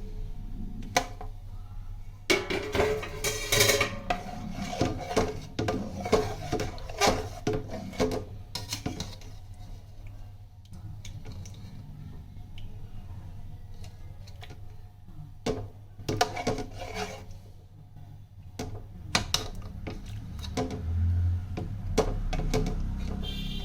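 Utensils clinking, knocking and scraping against pots and dishes, with light background music.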